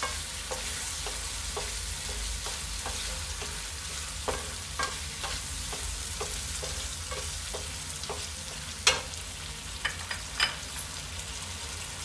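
Wooden spatula stirring paneer and green peas through a simmering masala gravy in a nonstick frying pan, scraping and knocking on the pan about twice a second over the steady sizzle of the frying gravy. Near nine seconds in there is a sharper knock, and another a little after ten seconds.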